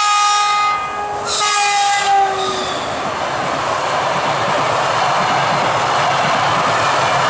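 EP1M electric locomotive's typhon air horn sounding two blasts, the second dropping slightly in pitch at its end, followed by the steady rushing noise of passenger coaches' wheels running past on the rails.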